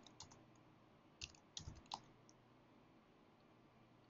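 A few faint computer keyboard keystrokes in the first two seconds as a short command is typed and entered, then near silence.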